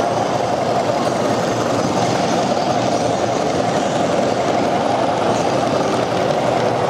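O-gauge model train running on three-rail track, a steady rumble of wheels and motor as a small steam-outline locomotive pulls log cars past.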